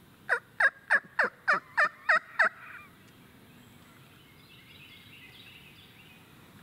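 Turkey yelping: a quick run of eight loud yelps, about three a second, each note breaking from high to low.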